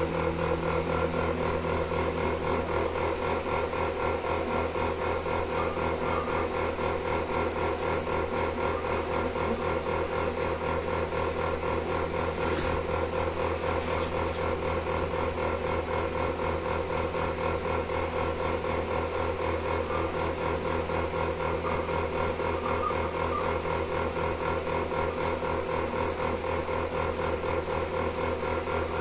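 Milking machine running steadily: a constant motor hum with a fast, even pulsing throughout, and one brief sharp click about twelve seconds in.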